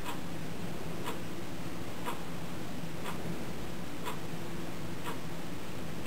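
Steady hiss and faint hum with a soft tick about once a second.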